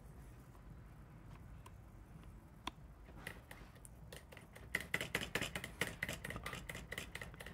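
Quiet handling sounds with one click a little before three seconds, then a rapid run of light, ringing clicks starting about five seconds in.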